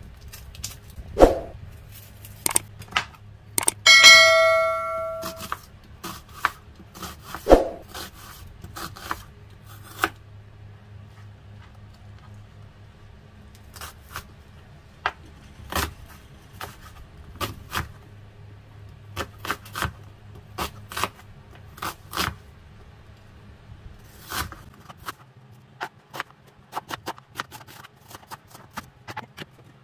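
Chef's knife peeling and chopping an onion on a plastic cutting board: irregular knocks of the blade on the board, coming more often in the second half. A single metallic ding rings for about a second and a half around four seconds in, over a low steady hum that fades out near the end.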